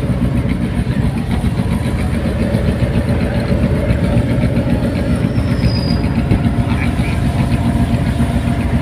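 Steady cabin noise of a Honda Astina with a 1.8 straight-four engine driving on a wet road in the rain, engine and tyre noise heard from inside the car.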